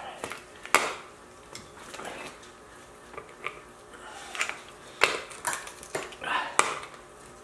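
Hand grease gun being pumped, its lever and coupler giving irregular metallic clicks and clacks: one sharp click under a second in, then a run of clacks in the last few seconds. Grease is being forced through a homemade greaser into an ATV wheel bearing, pushing the old grease out.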